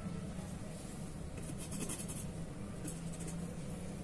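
Faint scratching and scraping as a steel ruler and a marking tool are worked against hollow steel bars, over a steady low hum.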